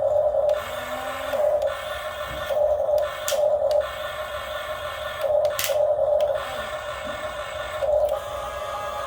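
RC excavator's electric motor and hydraulic pump whining, surging up in irregular bursts about six times as the controls are worked.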